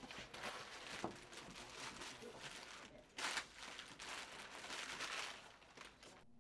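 Plastic folders, loose papers and a crinkly plastic bag being gathered up off the floor: faint rustling and crinkling, loudest a little after three seconds in.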